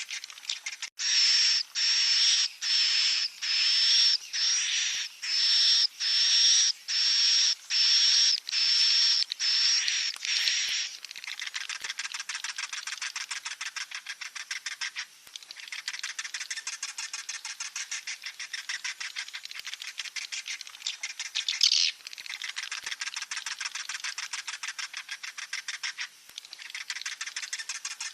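Edible-nest swiftlet chicks calling: a fast series of loud buzzy calls, nearly two a second, for the first ten seconds or so, then a softer continuous rapid chittering.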